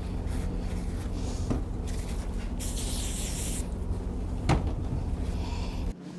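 A steady low hum, with a hiss lasting about a second near the middle and a single sharp knock about four and a half seconds in; the hum drops away suddenly near the end.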